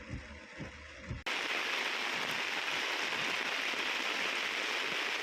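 Low rhythmic thudding that cuts off abruptly about a second in. It gives way to heavy rain falling, a loud, steady hiss.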